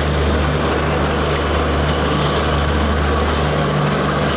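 Diesel locomotive engine running with a steady low drone as the express train moves slowly along.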